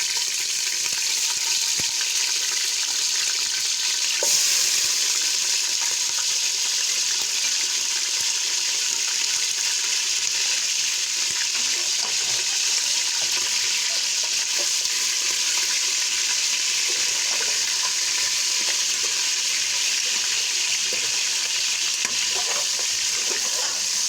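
Mutton frying in hot oil in a pot, a steady loud sizzle as the meat is browned. The sizzle gets louder about four seconds in.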